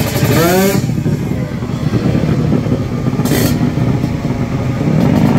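Kawasaki Ninja two-stroke drag bike engine revving hard, its pitch sweeping up shortly after the start and dropping again near the end, with a short hiss about three seconds in.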